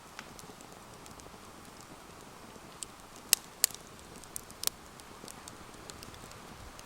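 Wood campfire crackling: irregular sharp pops over a steady soft hiss, with a few louder snaps around the middle.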